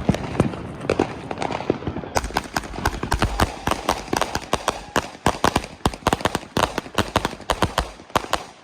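Consumer fireworks going off in a rapid run of sharp pops and crackles, several a second. The run turns crisper after about two seconds and stops just before the end.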